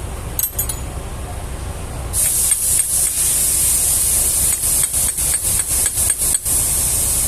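A pressurised spray starts hissing loudly about two seconds in and keeps going, briefly cut several times, over a steady low rumble.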